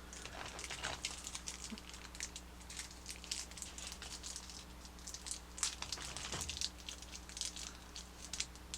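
Toy packaging being handled and opened: irregular crinkling and rustling with small clicks, over a steady low hum.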